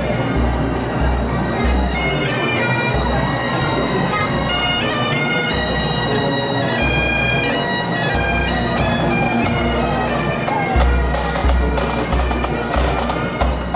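Bagpipes playing a tune, held notes stepping from one pitch to the next over a steady drone, with a low pulsing beat underneath.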